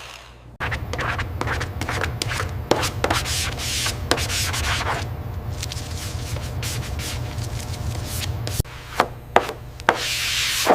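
Rubbing and scraping strokes over a steady low hum, then a few separate sharp knocks near the end.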